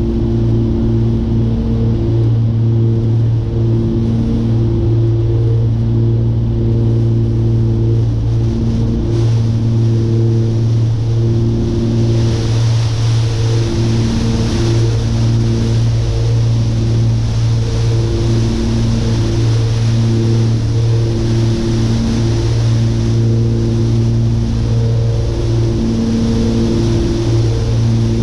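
Cabin sound of a Cessna 414's twin piston engines droning steadily, the hum wavering as the two propellers beat against each other. About twelve seconds in, a hissing patter of hail on the airframe and windscreen sets in and grows, the start of the plane flying into hail thrown out of nearby thunderstorm cells.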